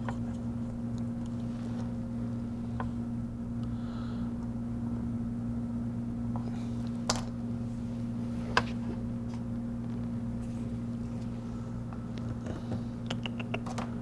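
Steady electrical hum of bench equipment. Two sharp small clicks come about seven and eight and a half seconds in, with a few light ticks near the end, as tweezers set a new charging port onto the tablet's circuit board.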